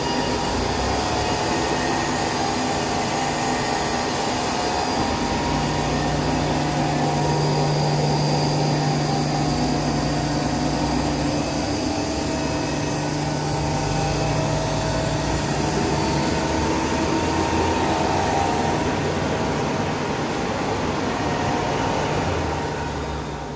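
JAZON JSP-40x80 surface grinder under power, its motors and pumps running with a steady hum and a constant low drone. The sound fades out at the very end.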